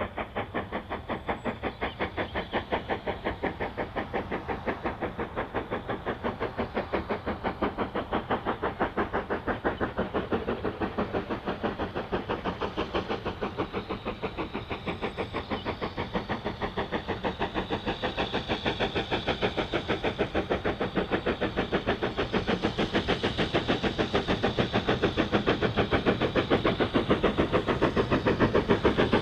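Steam locomotive working hard, its exhaust beats coming evenly at about four to five a second and growing louder toward the end as it draws nearer.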